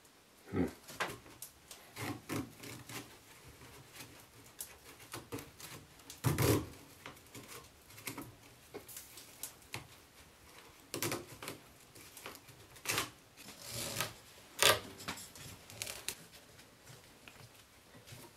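Rope being pulled, rubbed and knotted against a wooden frame: irregular rubbing and rustling with scattered soft knocks.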